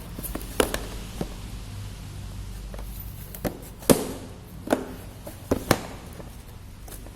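Cardboard shipping box being handled: a series of sharp, irregular knocks and taps, the loudest about four seconds in, over a low steady hum.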